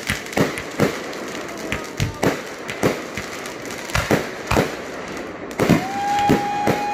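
Aerial fireworks going off: an uneven series of sharp bangs, about two a second, as shells launch and burst. A steady whistling tone comes in near the end.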